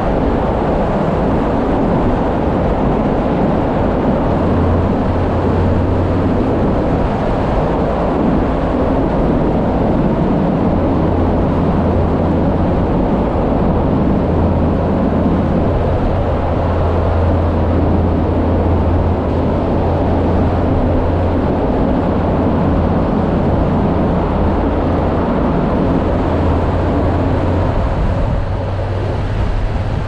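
Motorcycle riding at steady speed: a low, even engine hum under a constant rush of wind and road noise.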